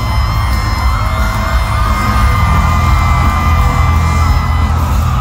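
Loud live concert music with heavy bass, heard from the crowd, with fans screaming and whooping over it in long, high, held screams.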